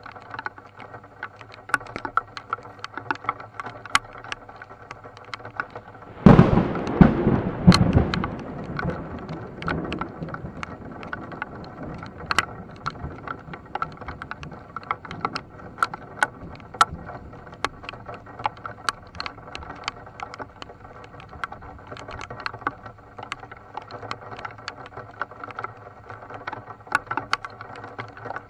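Raindrops ticking steadily on a car's windshield and roof, heard from inside the car. About six seconds in, a loud clap of thunder breaks suddenly and rumbles away over about five seconds.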